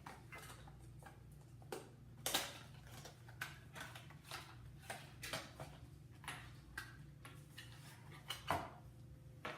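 A small product box being opened and handled: faint, irregular clicks, scrapes and rustles of the packaging, with a sharper click about two seconds in and another near the end.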